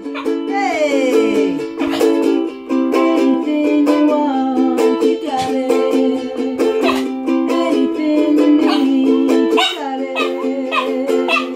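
Ukulele strummed in steady, rapid chords, with a short falling, sliding sound about a second in.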